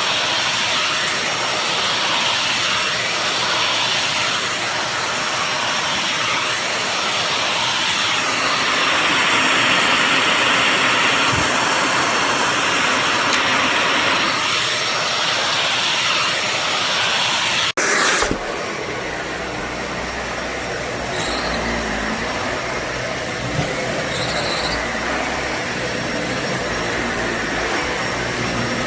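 Upright vacuum cleaner running with a steady rushing hiss and a faint high whine. About eighteen seconds in the sound breaks off abruptly and picks up again slightly quieter, with more low rumble.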